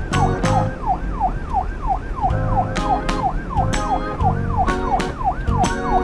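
Electronic siren, as on a toy emergency vehicle, sweeping quickly downward in pitch over and over, about three times a second, over a tune with a beat and clicking percussion.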